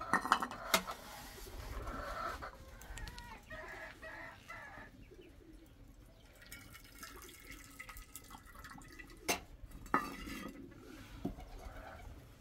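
Chickens clucking, with a few sharp knocks or clatters near the start and again near the end.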